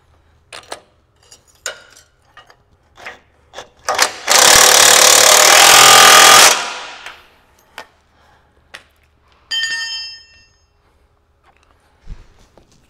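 DeWalt cordless impact wrench hammering a 15/16 nut tight on a bearing mounting bolt for about two seconds, the loudest sound. Light clicks of tools and metal parts being handled come before it, and a single metal clink that rings briefly follows a few seconds later.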